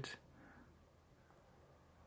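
Near silence: faint room tone after a spoken word ends at the very start.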